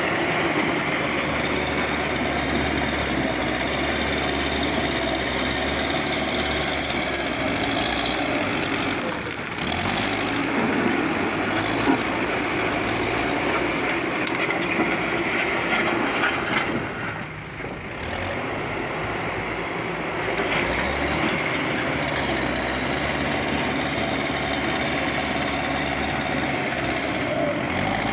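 JCB backhoe loader's diesel engine running steadily under working load, with a thin high whine over it. It eases off briefly twice, about nine seconds in and again around seventeen seconds.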